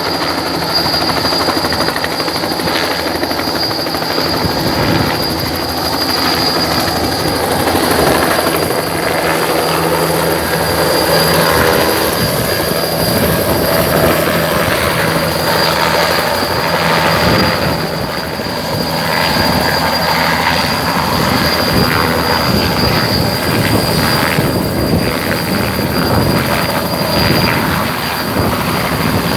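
Small helicopter running, its rotor beating under a steady high whine. The beat grows stronger about five seconds in.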